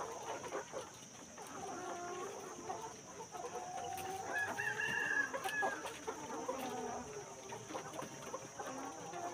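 A flock of chickens clucking over one another, with a rooster crowing loudest about halfway through.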